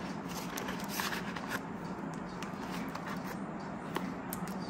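Soft rustling and small taps as a plastic binder pocket, a sticker sheet and cash-binder pages are handled and shut, over a faint steady hum.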